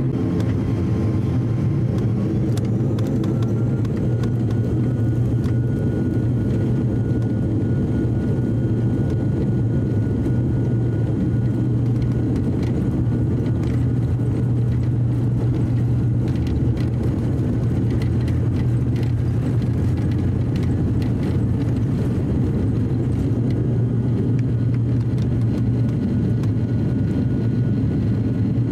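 ATR 42-600's twin Pratt & Whitney PW127M turboprop engines and propellers at takeoff power, heard from inside the cabin during the takeoff roll and climb-out. The propeller drone is loud and steady, and a thin engine whine rises in pitch about two to four seconds in, then holds.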